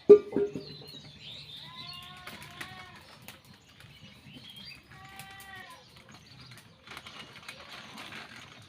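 A sharp, loud knock right at the start, then farmyard animal calls: short arching cries around two seconds and five seconds in, with bird chirps over a low rustle.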